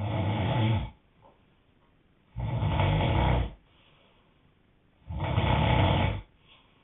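A man snoring loudly, three long rasping snores about two and a half seconds apart, each lasting about a second.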